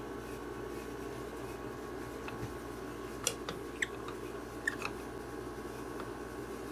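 A few light clicks and taps, clustered about halfway through, from handling and adjusting a large maple bowl blank mounted on a stopped wood lathe, over a steady low shop hum.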